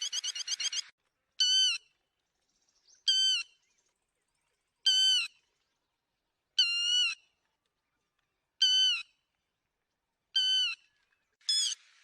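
Lapwing (yellow-billed 'te te') calling: a quick run of sharp notes at the start, then six single loud, clear calls spaced a little under two seconds apart, and another quick run starting near the end.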